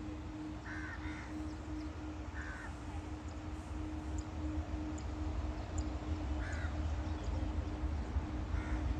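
Crows cawing, about five short calls, two close together near the start and others a few seconds apart, over a steady low rumble and a faint constant hum that grow a little louder toward the end.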